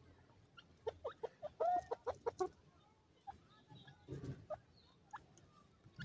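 Grey francolins giving a quick run of short, soft clucking notes for about a second and a half, then a few scattered single notes, with a brief low rustle about four seconds in.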